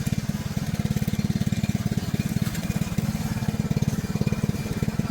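Mower's engine running at a steady speed with a fast, even pulse.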